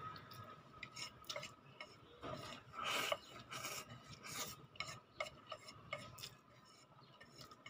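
Chopsticks clicking and scraping against a plate as noodles are eaten, with slurping of noodles. A louder rushing stretch comes about two to three seconds in.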